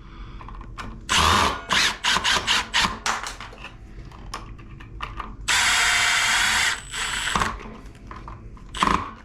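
Small power driver driving screws into a light switch and its cover plate: several short runs, then a steady run of just over a second about halfway through.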